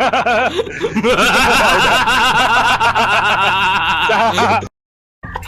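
Meme sound-effect clip of rapid, wavering snickering laughter. It cuts off suddenly near the end, and after a brief gap a new clip starts with short rhythmic notes.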